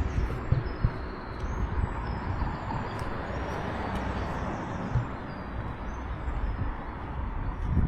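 Steady rush of running water, with a few faint high bird chirps and irregular low thumps underneath.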